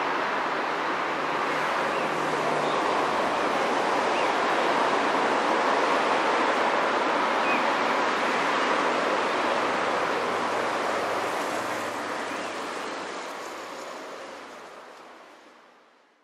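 Steady rolling rumble of a receding container freight train's wagons on the rails, fading out near the end.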